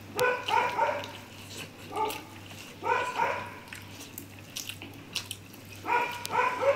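A dog barking in four short runs of quick barks, with small sharp clicks from eating by hand off steel plates between them.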